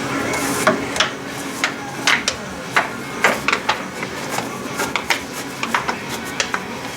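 Irregular metallic clinks and knocks of tools and metal parts being handled and set down, about two or three a second.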